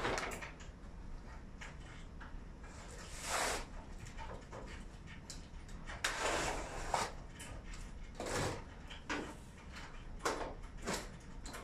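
Intermittent handling noise as LED video-wall modules are fitted to a steel frame: short scrapes, rustles and clicks, one every second or two, with longer swishes about three, six and eight seconds in.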